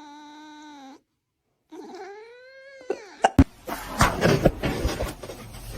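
A cat gives two long, drawn-out meows, the second rising and then falling in pitch. These are followed by a run of knocking and rustling with a few sharp thumps.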